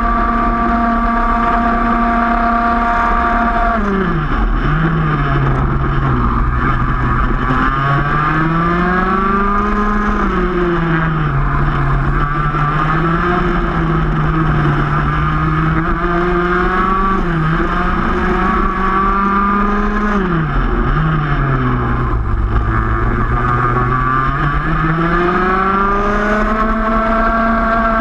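Two-stroke racing kart engine heard from on board at racing speed. Its pitch drops sharply about four seconds in and again around twenty seconds as the driver lifts for corners, then climbs back up under acceleration.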